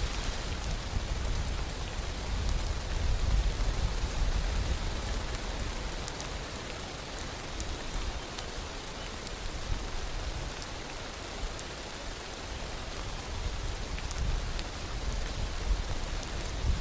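Heavy torrential rain falling steadily, with many sharp individual drop hits and a low rumble underneath.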